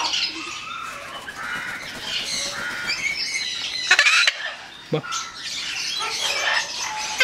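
Parrots squawking and chirping, with one loud, harsh squawk about four seconds in.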